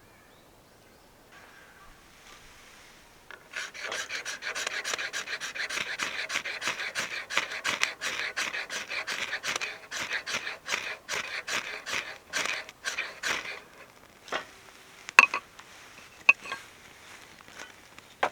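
Fast, regular rasping strokes, about three to four a second, run for about ten seconds and then stop. A few sharp knocks follow.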